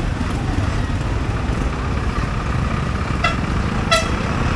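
Road traffic noise with two short vehicle horn beeps, about three and four seconds in.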